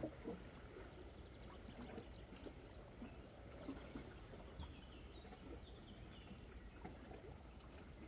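Quiet seashore ambience: small waves lapping and trickling among the rocks of a shoreline, over a low steady rumble, with a few faint bird chirps about halfway through.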